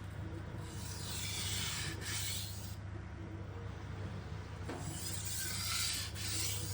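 Steel knife edge drawn across a vitrified diamond sharpening stone in light deburring passes: long scraping strokes, with a pause of about two seconds in the middle. A steady low hum lies underneath.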